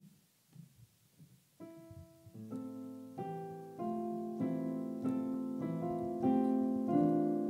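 Instrumental opening of a song: faint for about a second and a half, then sustained notes and chords come in and build, growing steadily louder.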